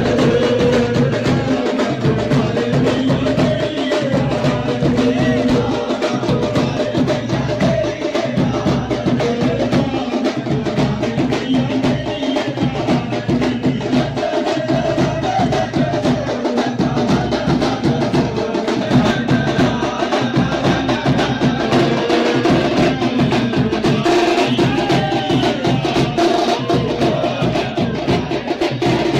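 Hindu aarti music for the goddess Kali: a sung devotional melody over a fast, steady percussion beat, with clapping along to it.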